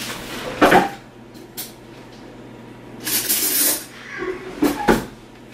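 Knocks and a brief hiss: a sharp knock about a second in, a short hissing rustle around three seconds, then two quick knocks near the end.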